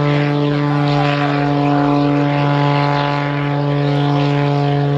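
Aerobatic propeller plane's engine and propeller running steadily, a loud unbroken droning note, while the plane climbs vertically trailing smoke.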